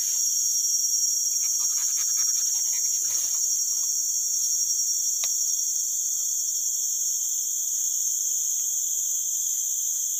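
Steady, shrill chorus of forest insects, crickets and the like, in several high pitches at once. A few faint small clicks come over it in the first few seconds.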